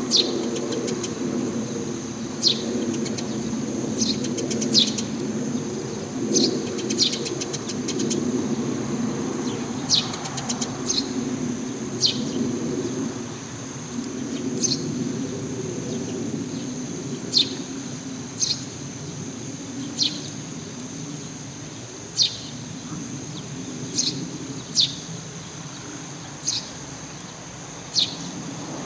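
Eurasian tree sparrow giving single short, sharp chirps, one every second or two, over and over.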